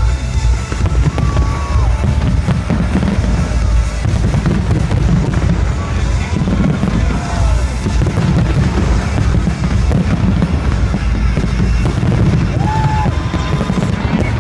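Fireworks display going off in a dense, continuous barrage of booming bursts and crackles, with music playing loudly underneath and a few short whistles.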